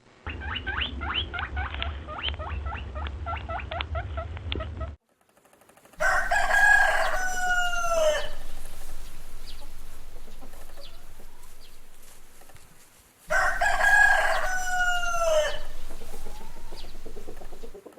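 Chickens clucking in quick, evenly spaced calls for about five seconds, then a rooster crowing twice, each crow about two seconds long and falling in pitch at its end.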